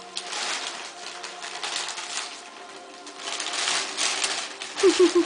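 Wrapping paper rustling and crinkling in several bursts as it is pulled off a gift. Near the end come three short high-pitched vocal sounds in quick succession, the loudest thing heard.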